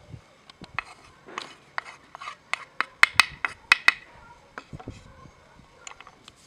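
Quick run of light, sharp taps and scrapes as chopped greens are pushed off a cutting board into a glass bowl, the taps coming fastest and loudest in the middle, about three or four a second, then thinning out.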